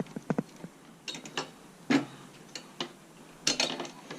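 Scattered plastic clicks and knocks from a headlight wiring harness connector being worked by hand, its push-down locking tab pressed and the plug pulled. The loudest knock comes about two seconds in, and there is a rattly cluster near the end.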